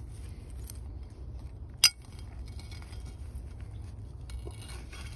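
A digging tool clinking sharply once against buried glass, about two seconds in, among a few fainter ticks of digging in the dump soil.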